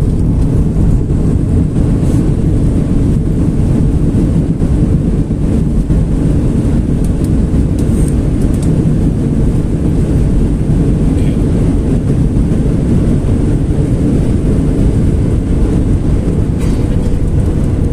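Cabin noise of a Boeing 737 on its landing roll: a steady, loud rumble of engines and wheels on the runway as the jet slows after touchdown.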